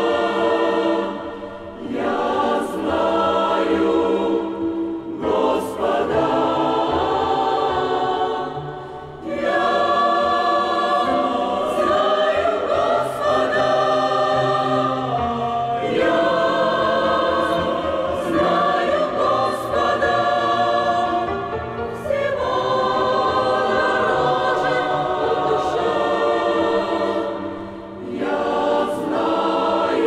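Church choir singing a hymn, holding long chords with short breaks between phrases.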